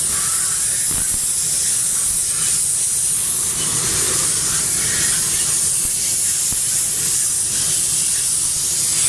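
High-pressure water jet spraying a motorcycle during a wash, a steady loud hiss.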